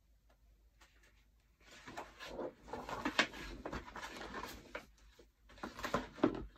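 Paper rustling and handling noise as a picture book's page is turned, in two stretches with small clicks.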